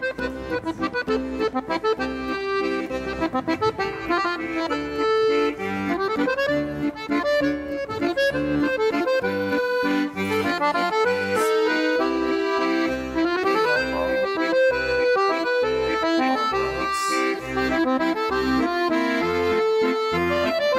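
Background music: an accordion-led tune over a regular bass beat.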